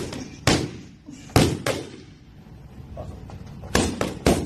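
Boxing gloves striking focus mitts in quick combinations: sharp smacks, two near the start, two more about a second and a half in, and a fast two or three near the end.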